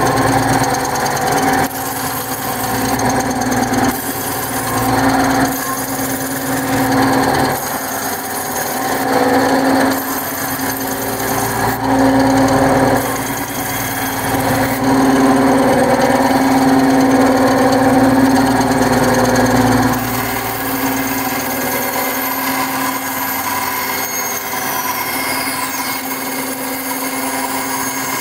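Benchtop bandsaw running with a steady hum, its blade cutting through a block of balsa wood. The sound swells louder in several stretches, then runs steadier and a little quieter over the last several seconds.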